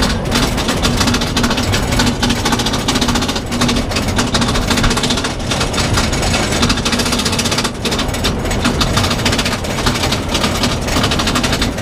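Roller coaster car being hauled up the lift hill by its chain: a fast, steady clacking from the anti-rollback ratchet over a low mechanical hum.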